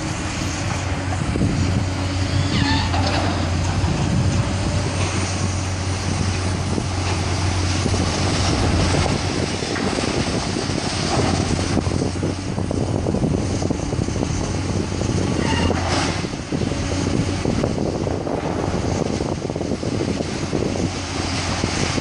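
Diesel engines of tracked hydraulic excavators running with a steady low drone, over a dense clatter of rubble and metal as a building is torn down.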